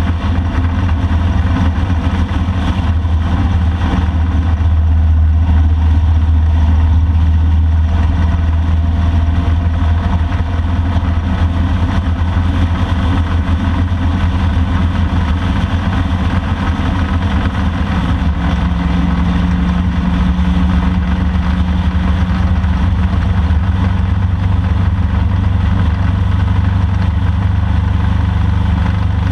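Motorcycle riding at a steady speed: the engine runs with a continuous low drone under steady road and wind noise.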